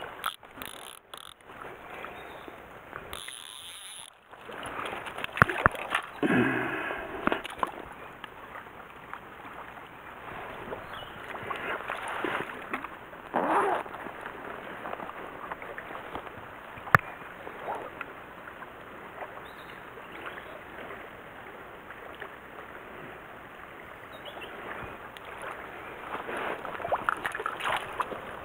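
Mountain stream water running and splashing, with a few sharp clicks among it.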